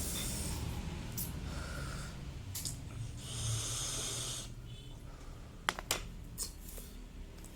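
Airy breathing of a person drawing on a pod vape and breathing out, in two long hissing passes, then a couple of sharp clicks about six seconds in.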